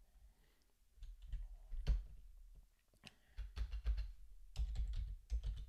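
Typing on a computer keyboard: a few scattered keystrokes, then a quicker run of them in the second half, as a kubectl command is typed and edited in a terminal.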